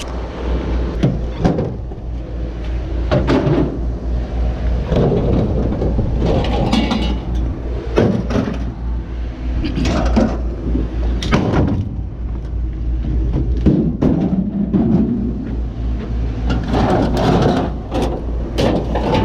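A heavy machine's engine running steadily, with irregular metal clanks and bangs of scrap being handled.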